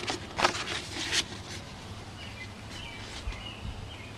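Stiff poster paper rustling a couple of times as it is handled in the first second or so, then a quiet outdoor background with a few faint bird chirps.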